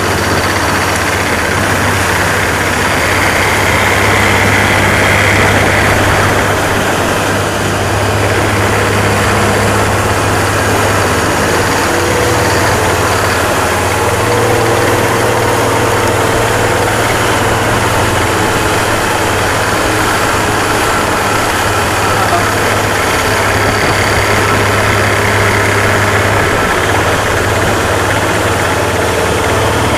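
A Stingray 195LR speedboat's 4.3 MPI V6 sterndrive engine running steadily under way while towing a tube, mixed with the rush of foaming wake water.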